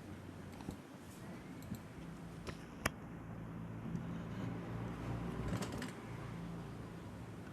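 A few scattered light clicks and taps, the sharpest about three seconds in, over a low steady hum.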